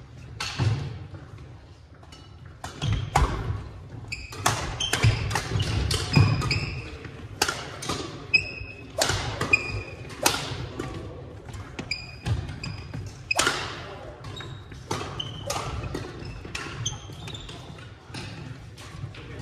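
Badminton doubles rally on a hardwood gym floor: rackets cracking against the shuttlecock again and again, footfalls thudding on the wooden court and short sneaker squeaks.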